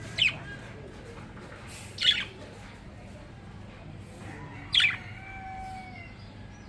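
Budgies giving three loud, short chirps about two seconds apart, each sweeping down in pitch. A fainter, held call follows the third chirp.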